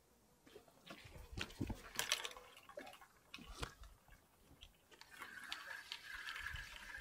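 A fishing rod being picked up and handled, with a run of sharp clicks and knocks, then a fishing reel being wound, a steady ticking whir from about five seconds in.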